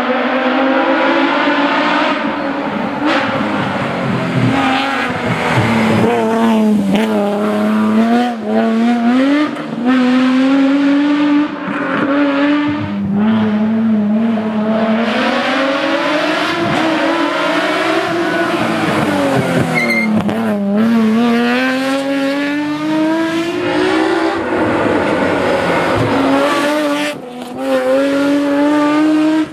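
Nissan 370Z's 3.7-litre V6 engine driven hard, its pitch climbing and falling repeatedly through the gears, with brief dips at the gear changes.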